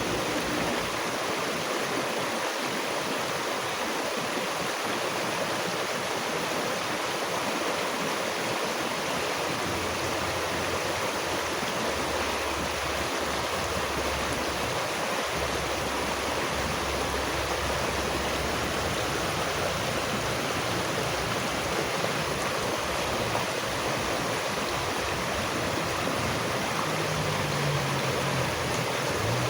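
Steady rushing water of a stream, an even hiss with no change in level. Near the end a faint low hum comes in under the water.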